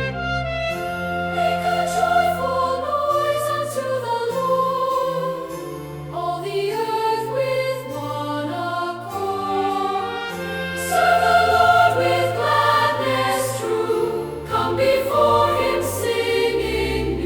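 Choir singing a hymn in sustained, slowly changing chords over long held bass notes from the accompaniment.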